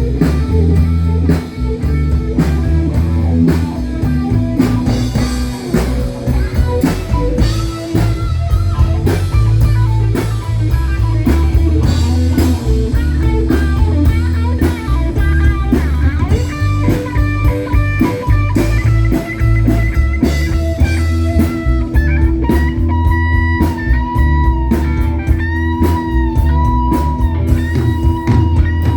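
Live rock band playing an instrumental passage: guitar over bass and a drum kit. In the last few seconds a lead line with notes bending up and down stands out.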